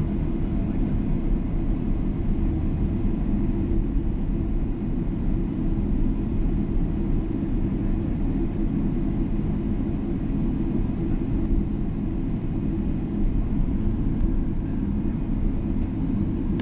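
Boeing 777 jet engines running as a steady low rumble, with faint steady tones above it and no change in pitch or loudness.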